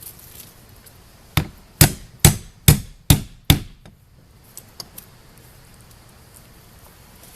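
Six quick hammer blows about half a second apart, driving a starter hole into the wooden barn door to hold a strap hinge in place.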